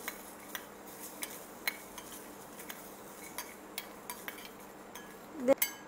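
Steel spoon clinking and scraping against a small steel pan while stirring almonds as they roast over a gas burner: light, scattered clinks, with a quick run of ticks near the end.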